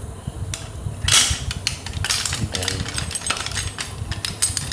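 A key being worked in a Godrej six-lever door lock: a run of sharp metallic clicks and rattles as the key goes in and turns the lever mechanism, with a louder scrape about a second in.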